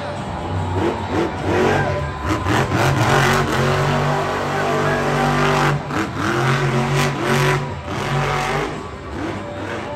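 A monster truck's supercharged V8 revving hard, with the engine pitch repeatedly dropping and climbing again, and sharp rises about six and seven seconds in.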